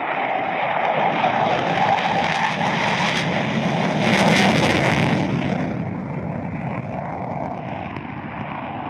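Panavia Tornado IDS's twin afterburning RB199 turbofans at full power on the takeoff roll. The jet noise builds to its loudest as the aircraft passes about four to five seconds in, then fades as it lifts off and climbs away on afterburner.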